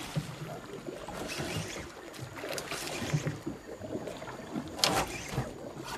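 Water splashing and sloshing around a small boat as a hooked fish is fought on rod and reel, with one short, louder burst about five seconds in.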